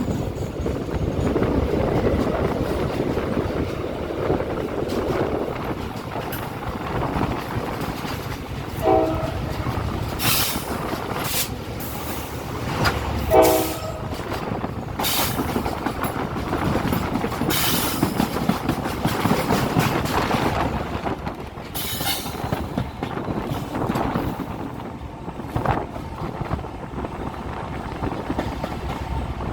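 Train running with steady rumble and wheel clatter, its horn giving two short blasts about a third of the way in and a few seconds later, with brief high screeches in between.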